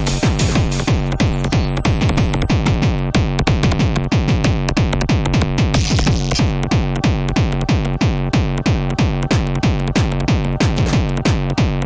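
Live electronic techno played on machines: a drum machine, which the uploader names as an 808, keeps a fast steady beat over sustained synthesizer bass notes. A high hiss drops out about two and a half seconds in.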